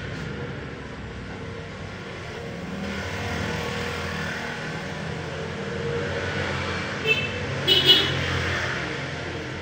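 Motor vehicles running steadily, with a few short, sharp high-pitched sounds like horn or squeak blips about seven to eight seconds in.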